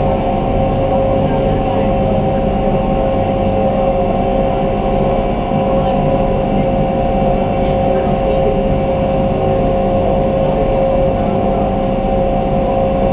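Resort launch boat's engine running steadily under way, a constant drone with a steady hum, heard from on board.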